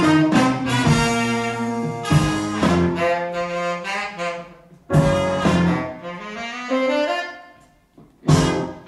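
Live band's horn section of saxophone, trumpet and trombone playing blues in phrases with short breaks, the saxophone most prominent.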